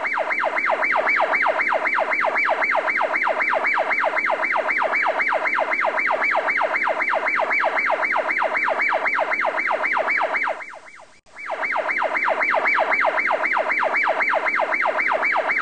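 Electronic police siren in a fast yelp, about four rising-and-falling sweeps a second, cutting out briefly about ten and a half seconds in.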